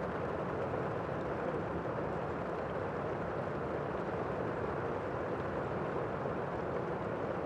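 Strong wind of a tornado making a steady rushing noise with no breaks.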